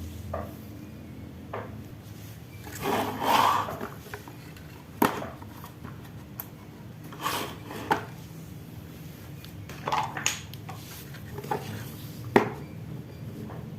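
Marbles rolling and clattering down a wooden Haba marble run track. Rolling rushes and sharp knocks come at irregular moments, the loudest rolling stretch about three seconds in and the sharpest click near the end.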